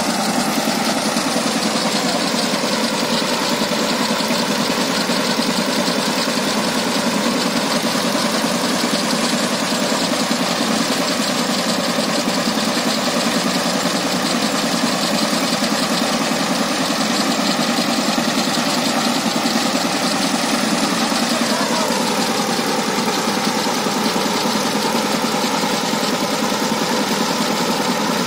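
Single-cylinder diesel engine of a power tiller (two-wheel tractor) running steadily; about 21 seconds in its pitch drops as it slows, then it runs on steadily at the lower speed.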